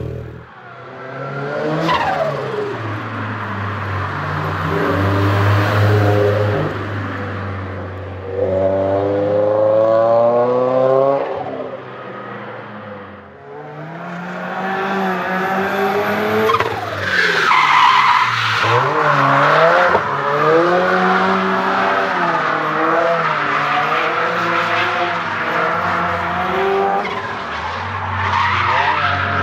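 Single-turbo Rocket Bunny Toyota GT86 drifting: the engine revs rise and fall as the throttle is worked, with the tyres squealing through the slides. The tyre screech is loudest about two-thirds of the way through.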